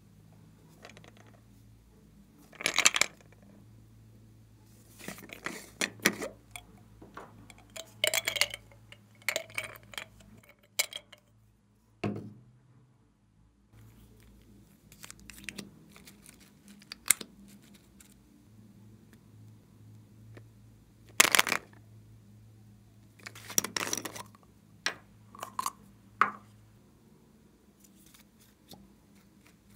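Small plastic makeup tubes and caps handled and opened over a glass baking dish: a scattered run of sharp clicks and clinks, some in quick little clusters.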